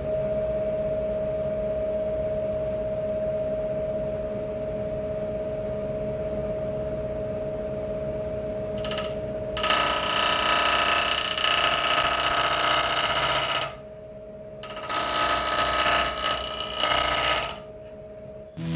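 Wood lathe spinning a canary wood bowl blank at about 900 rpm with a steady motor whine, then a gouge cutting into the blank in two long passes from about ten seconds in, rounding it out.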